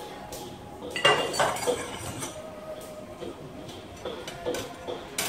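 Dishes and utensils clinking and knocking: a cluster of sharp clinks about a second in, then lighter scattered knocks.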